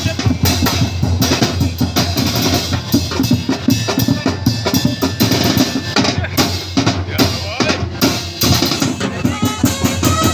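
Percussion band of bass drums and snare drums playing a steady, driving beat as street-dance music.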